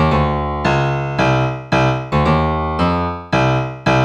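Intro music: piano-like keyboard chords struck about every half second, each fading before the next.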